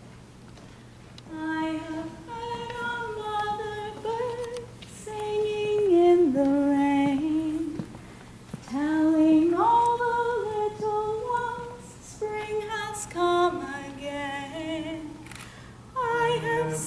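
A woman singing a slow melody unaccompanied, in short phrases with brief pauses, starting about a second and a half in.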